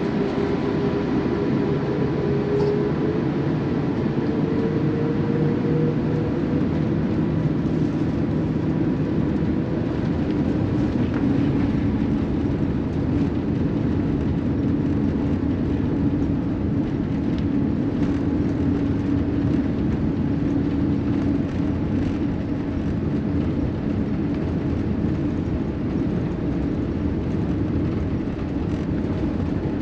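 Steady cabin noise inside an Airbus A380 taxiing on the ground: an even rumble and hiss from the engines and airflow. Faint engine tones run through it, one rising slightly in pitch in the first few seconds and another coming in about ten seconds in.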